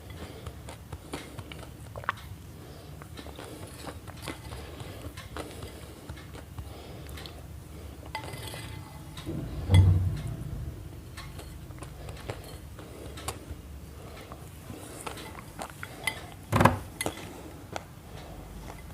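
Scattered light clinks and knocks of objects being handled, with a louder thump about halfway through and another near the end, over a low steady rumble.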